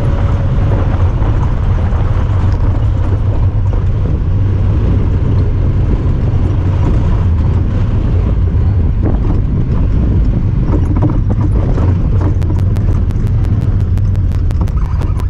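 Honda Talon 1000R side-by-side's parallel-twin engine running steadily under way, with rattling over rough ground. A rapid, even ticking comes in about three seconds before the end.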